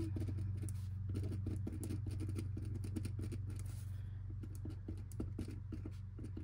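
Pen writing on a paper sheet on a desk: a dense run of short scratches and taps as the words are written, over a steady low hum.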